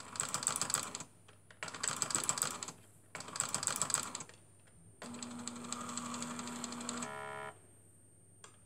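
Commodore VC-1520 plotter's stepper motors, worked from its front buttons: three bursts of rapid rattling clicks, each about a second long, as the paper is stepped through. Then a steadier motor run with a low hum for about two seconds, ending in a brief buzzing rattle before it stops.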